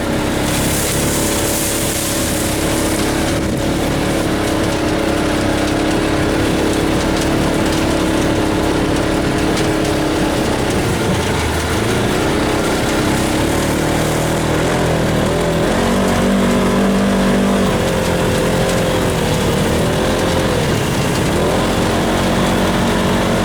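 Polaris RZR side-by-side's engine running while driving. Its pitch holds steady at first, then rises and falls with the throttle through the second half. A high hiss sounds in the first few seconds.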